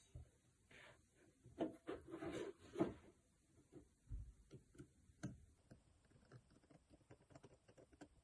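Light clicks and taps of Nokia Lumia 630 phone parts being handled and fitted together, with a cluster of louder knocks in the first few seconds and then scattered small ticks.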